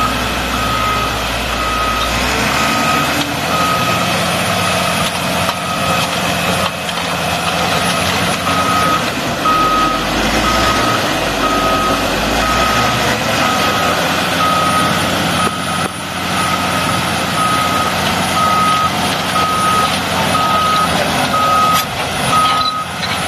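Backup alarm on a piece of heavy equipment beeping in a steady, even rhythm, about one and a half beeps a second, over the running noise of the machine.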